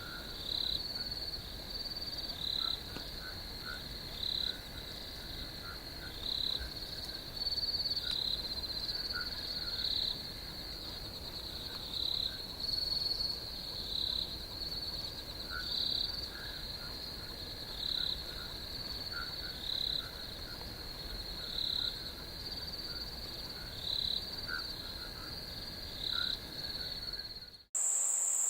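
Night chorus of insects and frogs: a steady high trill swelling in louder pulses every one and a half to two seconds, with short lower chirps scattered through it. About a second before the end it cuts abruptly to a higher, steady cricket trill.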